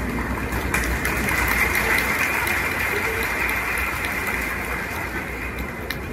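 Large crowd cheering and applauding: a steady din that swells about a second in and eases off near the end, with a few sharp knocks.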